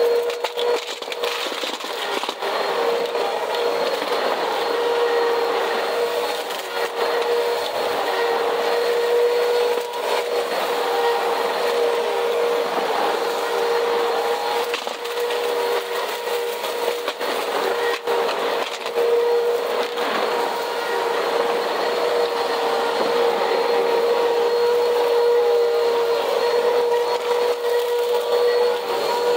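Bissell CleanView upright vacuum running with a steady motor whine while grit and dirt crackle and rattle as they are sucked up off a cement floor.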